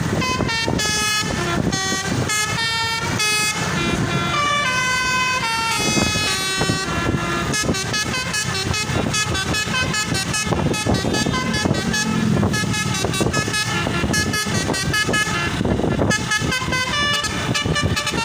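Indonesian bus telolet horn (Basuri multi-tone air horn) playing a tune: a run of short tooting notes that step from pitch to pitch, the notes coming faster from about seven seconds in.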